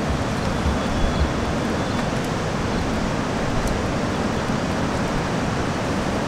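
Wind buffeting the microphone: a steady rushing noise with gusty low rumbles, strongest about a second in.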